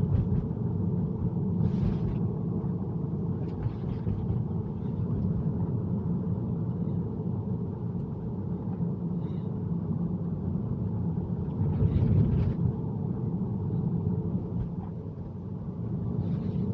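Tesla rolling along a wet road: a steady low rumble of tyre and road noise, with a few brief hisses spread through it.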